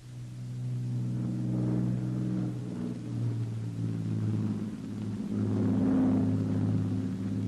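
Aircraft engines droning steadily. The drone cuts in suddenly, builds over about a second, then swells and fades slightly in level.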